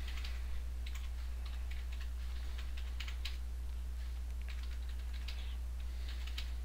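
A steady low hum with faint, irregular light clicks scattered through it.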